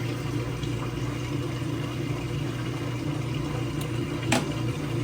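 GE washing machine in its diagnostic spin test: a steady low hum from the machine, then a single sharp click about four seconds in as the lid lock engages before the spin.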